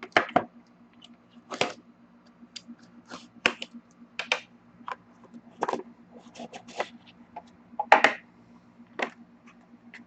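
Hockey card box and its packaging being opened and handled: a string of short, irregular crinkles and clicks, the loudest about eight seconds in.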